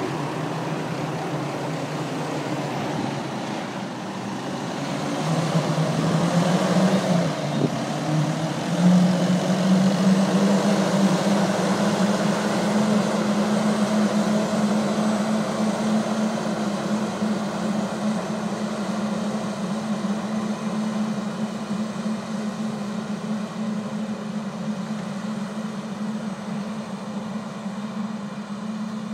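Farm tractor engine running steadily under load with a C&N Bug Vac in tow, a continuous hum with a rushing noise over it. The engine note steps up a few seconds in and the sound is loudest as it passes close, then slowly fades as it moves away down the rows.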